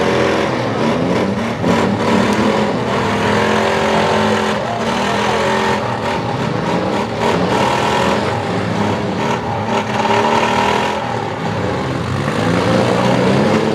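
Engines of several front-wheel-drive demolition derby cars revving hard at once, their overlapping pitches rising and falling, with a few short sharp knocks of impact among them.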